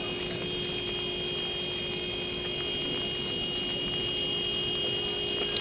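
Insects trilling steadily in a rapid, high-pitched pulse, over a steady low hum.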